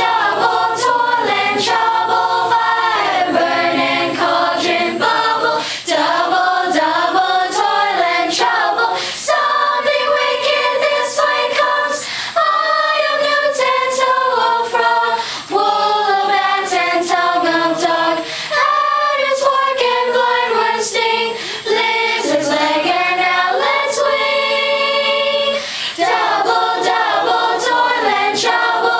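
Middle-school choir of young, mostly girls' voices singing a song together, with sharp clicks here and there.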